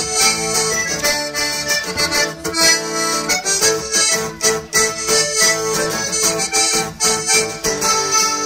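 Accordion playing a folk tune over a strummed acoustic guitar, in a steady rhythm, with no singing.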